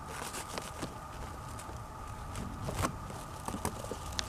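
Scattered light rustles, taps and crackles of a shipping package being handled and unwrapped, a few sharper clicks among them.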